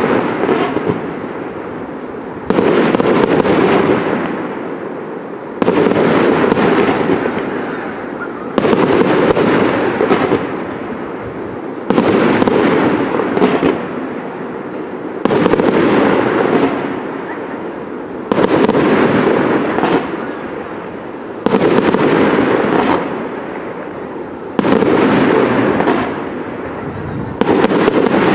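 Fireworks display: a sudden loud burst about every three seconds, nine in all, each fading away over the following seconds.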